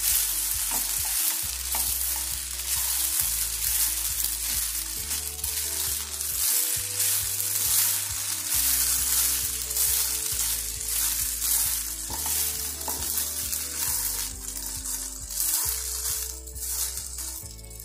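Vermicelli upma sizzling in a hot nonstick pan while a spatula stirs and tosses it, with repeated scraping strokes against the pan. Soft background music runs underneath.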